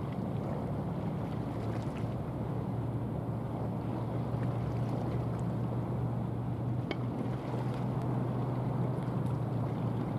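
Steady low drone of a passing cement carrier's diesel engine, with the rush of its bow wave and wind hiss.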